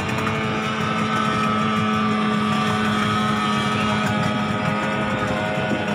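Outboard engine of a racing speedboat running with a steady drone.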